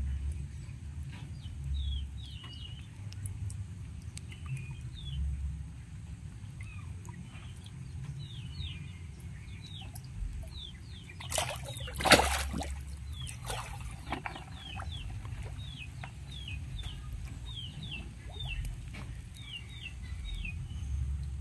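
Birds chirping repeatedly in short falling notes, with a loud splash of water about twelve seconds in as a catfish lunges at the hand in shallow muddy water, and smaller splashes just after.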